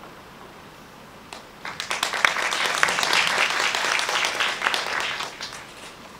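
Audience applause, starting about a second and a half in and dying away near the end.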